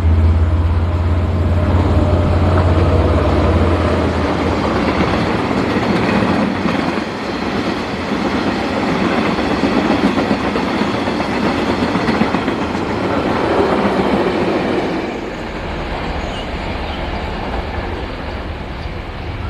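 A diesel-electric locomotive, a KiwiRail DL class, passes close by with a loud low engine drone. Its train of freight wagons then rolls past with steady wheel-on-rail clatter. Near the end the sound drops a little and a locomotive's low engine hum comes back as another train approaches.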